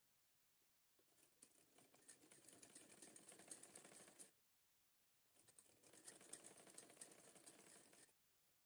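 Domestic sewing machine stitching fabric in two runs of rapid needle clatter, each about three seconds long, with a pause of about a second between them.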